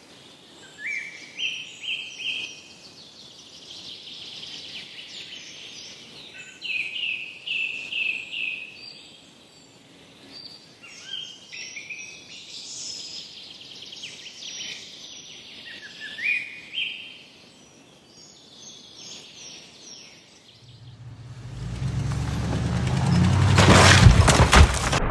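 Songbirds singing: short rising whistled phrases repeated every couple of seconds over a steady outdoor background hiss. In the last few seconds a low rumble comes in and grows loud.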